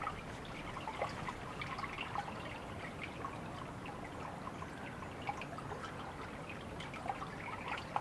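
Water dripping and trickling: many small irregular drips and plinks over a soft steady wash of running water.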